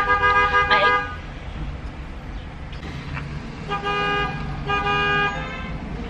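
Car horns honking in traffic, heard from inside a car: a long blast that ends about a second in, then two shorter blasts near the four- and five-second marks, over the steady low rumble of the car on the road.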